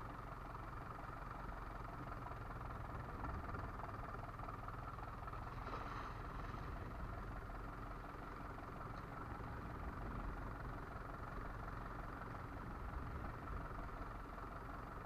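Fishing boat's engine running steadily with an even hum. About six seconds in, a brief hiss rises over it.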